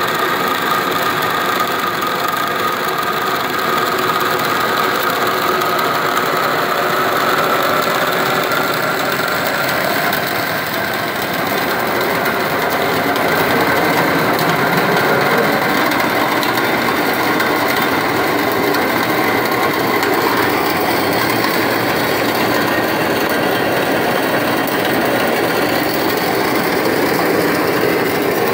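Water cavitating as it is forced through a DN100 (4-inch) orifice plate in a steel test pipeline: a loud, steady, dense noise with a faint tone that rises slightly over the first several seconds. The noise dips briefly about ten seconds in, then comes back a little louder.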